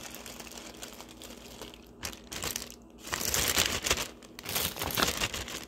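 Plastic zip-top bag crinkling as it is handled and squeezed, in bursts starting about two seconds in, loudest a little past the middle.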